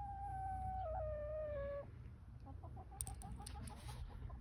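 Barred rooster ending a crow with a long held note that steps down and falls in pitch, then clucking in a quick run of short notes, about four a second.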